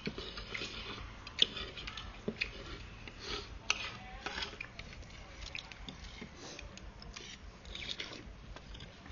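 Noodle soup being eaten: wet, liquid slurping and scattered clicks of a spoon against the bowl, with one sharp clink about one and a half seconds in.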